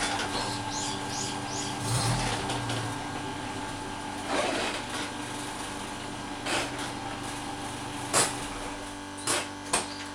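Nissan Sunny van running, with about five sharp knocks in the second half, the loudest a little after eight seconds in. The knocks are the abnormal noise from the rear that comes when pulling away, when braking, and with the throttle on and off.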